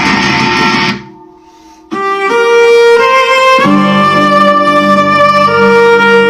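Instrumental background music. A dense passage breaks off about a second in, and after a short quiet gap a string melody of long held notes begins, rising in steps.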